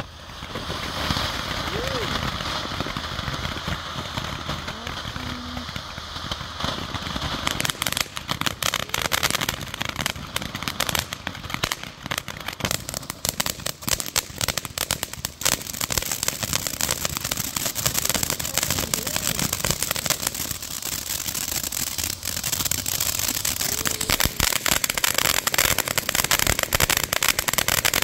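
Ground fountain firework spraying sparks. It starts as a steady hiss, then from about eight seconds in turns into dense crackling that grows louder near the end.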